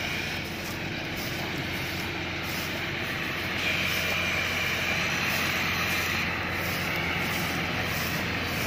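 Rice combine harvester's engine and machinery running steadily as the machine moves off to unload its grain. It gets a little louder about three and a half seconds in, with a high whine over the engine drone.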